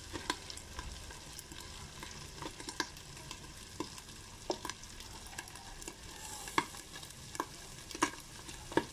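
Meat frying in oil in a covered nonstick pan after its cooking liquid has dried off: a low steady sizzle broken by irregular sharp pops of spattering fat, the loudest near the end.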